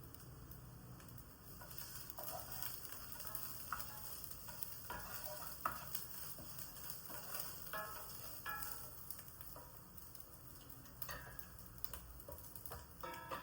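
Food sizzling in a frying pan while it is stirred, with a utensil scraping and clicking against the pan every second or so.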